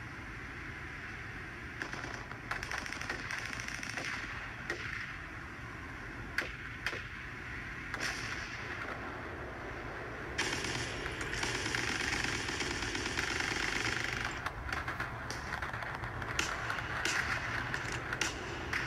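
Battle sound effects: machine-gun fire and scattered single gunshots over a steady din of combat noise, growing louder about ten seconds in.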